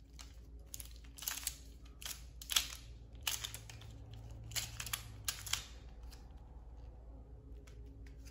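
Qiyi MS pyraminx being turned fast in a speedsolve: a run of short plastic clicks from the turns, fewer and fainter after about five and a half seconds.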